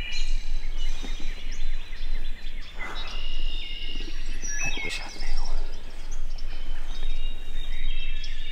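Several songbirds singing at once in woodland, overlapping short whistled phrases, with a few brief rustles and one sharp click about five seconds in.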